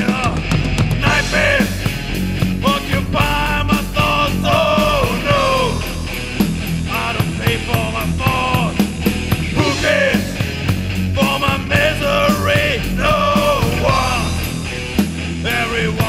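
Thrash/heavy metal band recording: distorted electric guitars and driving drums with steady cymbal and drum hits, and a bending melodic line on top.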